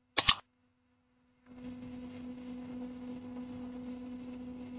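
A short sharp click just after the start, then a second or so of dead silence, then a steady low hum with fainter higher overtones that holds to the end.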